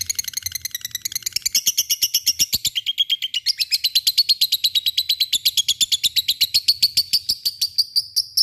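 Lovebird "ngekek": a long, unbroken chattering trill of rapid, sharp high notes, about ten a second, kept up without a pause.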